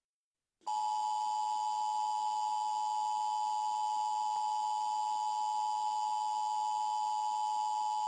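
Steady electronic alert tone of two close pitches near 1 kHz, the attention signal of an emergency broadcast. It starts suddenly about half a second in after dead silence and holds unchanged.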